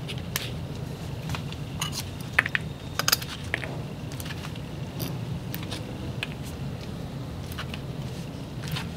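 Irregular sharp clicks and ticks from a bearded dragon and African bullfrogs moving and feeding on live worms on a hard surface, over a steady low hum.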